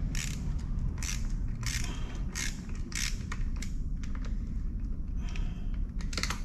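Hand tool working a small bolt loose on a kids' go-kart's plastic body: a series of short scraping strokes, about one every half second to second, thinning out past the middle and picking up again near the end.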